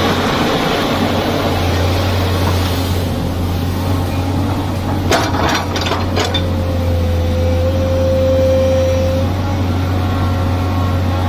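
Excavator's diesel engine running steadily with a low drone. A cluster of knocks comes about five to six seconds in, and a steady whine runs for a few seconds after it.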